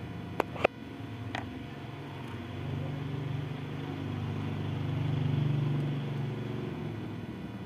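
A few sharp clicks in the first second or so, then a low engine drone that swells and fades away, like a motor vehicle passing.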